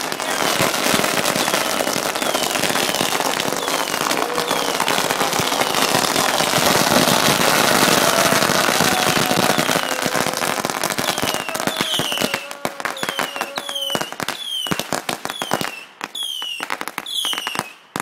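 Firecrackers going off in a long, dense run of rapid pops. The crackle thins into separate sharp bangs over the last six seconds, with short falling whistles repeating among them.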